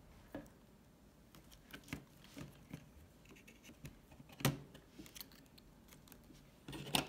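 Scattered light clicks and scrapes of a laptop touchpad module and its ribbon cable being handled and seated against the metal palmrest frame, with a sharper tap about four and a half seconds in and a few more clicks near the end.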